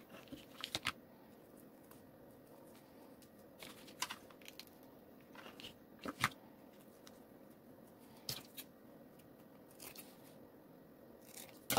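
Faint snips and rustling of scissors trimming and handling fabric ribbon: a handful of short, sharp clicks spread a couple of seconds apart.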